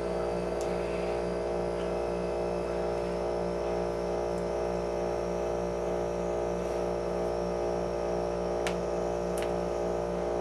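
Steady electrical hum, a stack of unchanging tones at an even level, with two faint ticks near the end.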